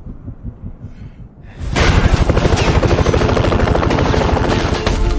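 A low, rhythmic throbbing, then about two seconds in a sudden loud barrage of rapid automatic gunfire that keeps going.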